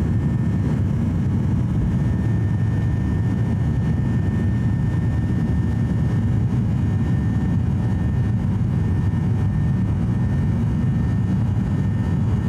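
Steady cabin noise inside a Boeing 737-800 climbing out after takeoff: its CFM56-7B jet engines and the airflow make an even low rumble, with a few faint steady tones above it.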